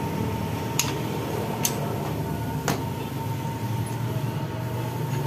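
Three sharp clicks about a second apart as tools and bolts are handled on a scooter's aluminium final-drive casing, over a steady low hum.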